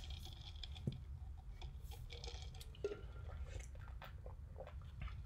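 Faint scattered small clicks and rustles over a low steady hum of room noise.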